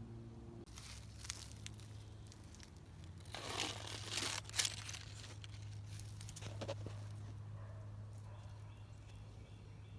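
A few bursts of rustling and crinkling, loudest about three and a half to five seconds in, over a steady low hum.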